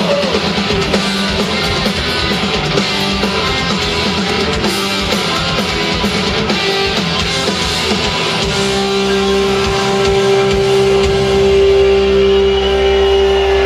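Live punk rock band, with distorted electric guitars, bass and drums, playing loud through a concert PA. About eight and a half seconds in, the drum hits fall away and a single guitar note is held ringing over a low sustained chord.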